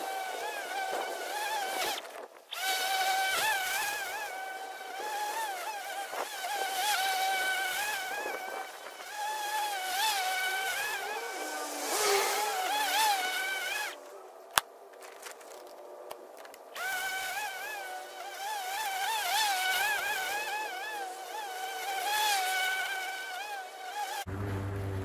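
Ryobi 36V battery lawn mower running while cutting grass, a high motor whine whose pitch wavers constantly. The whine drops out briefly a couple of times, with a sharp click about halfway through, and gives way to a steady low hum near the end.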